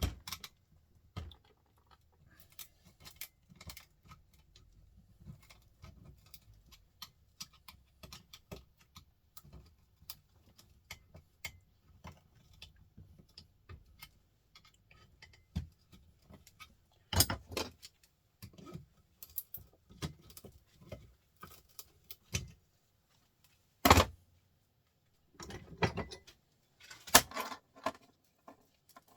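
Small metal parts and hand tools clinking and tapping irregularly as a small printer motor is taken apart by hand, with a few louder metallic knocks in the second half.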